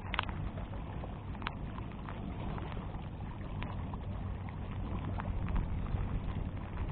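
Steady low rumbling outdoor noise of wind and water, with a few sharp clicks: one at the start, one about a second and a half in, and another near the middle.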